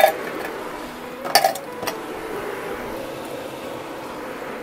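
Metal kitchen utensils clinking against cookware: a sharp clink at the start, then a short cluster of clinks about a second and a half in, over a steady low background.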